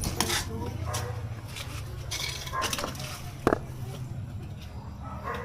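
Scattered clinks and knocks of hard objects, with one louder knock that rings briefly about three and a half seconds in, over a low steady hum.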